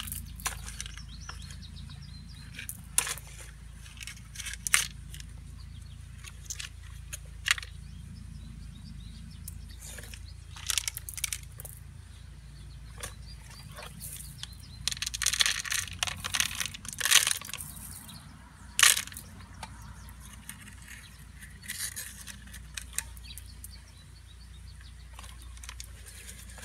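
Pea-sized pebbles crunching and rattling against plastic toy construction trucks as they are scooped and pushed through the gravel, in scattered clicks and short bursts that are busiest around the middle, over a steady low background hum.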